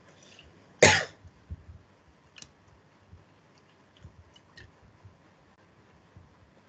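A person gives one short throat-clearing cough about a second in, followed by a few faint clicks.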